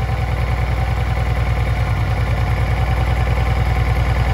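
Honda PC800's liquid-cooled 800 cc V-twin engine idling steadily, its exhaust pulsing evenly.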